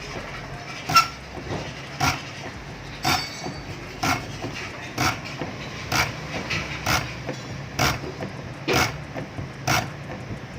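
Hand-lever injection nozzle tester being pumped, the diesel injector nozzle releasing a short sharp spray burst with each stroke, about once a second, over a faint steady low hum.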